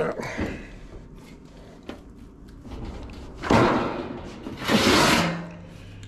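Sheet-metal panel handled at a finger brake: a knock and a click, then two loud sliding, scraping rushes of sheet metal about three and a half and five seconds in.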